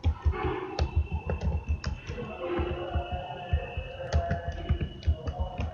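Typing on a computer keyboard: a quick, irregular run of key clicks, with a faint steady hum behind it.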